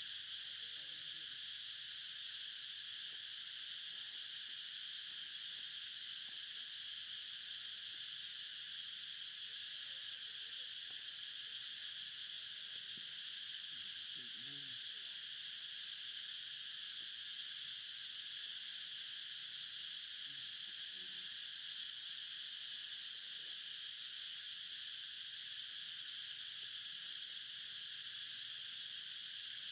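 Steady chorus of forest insects: an unbroken high-pitched hiss that holds at one level throughout.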